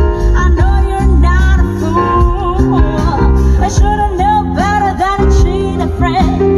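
A song with a singing voice and heavy bass, played through a car's aftermarket audio system (Crescendo Evolution 9S3 three-way front speakers and a 12-inch Focal subwoofer) and heard inside the cabin.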